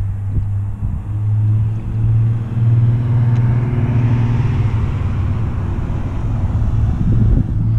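A sports car driving past on a race track at moderate revs on a cool-down lap: a steady engine note that swells as the car approaches, with tyre and road hiss rising to a peak as it passes.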